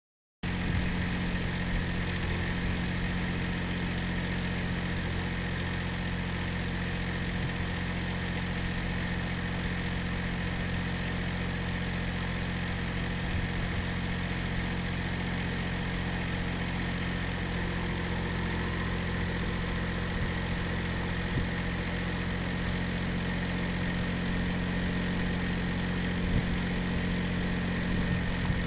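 An engine idling steadily, cutting in abruptly just after the start and holding one even pitch throughout.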